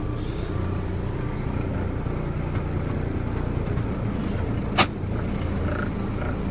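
Heavy farm vehicle engine running steadily with a low drone, with a single sharp knock a little under five seconds in.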